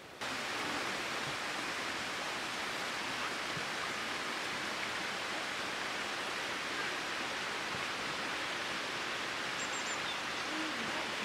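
Steady outdoor rushing hiss that starts abruptly at the beginning, with a few faint high bird chirps near the end.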